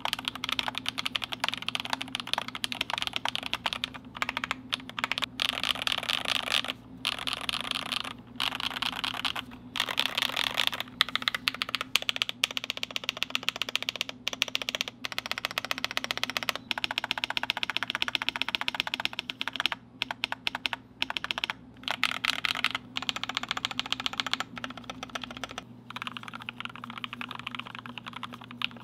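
Typing on a GMMK Pro mechanical keyboard in quick runs of keystrokes with short pauses. The first part is lubed Glorious Panda tactile switches on a polycarbonate plate with foam under PBT keycaps; near the end it is Durock L7 linear switches on an aluminium plate with foam, typing a little more quietly.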